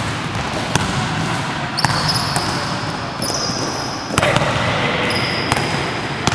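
Basketballs bouncing on a gym court in a large, echoing sports hall: a sharp thud about every second. Several short high squeaks run in between the thuds.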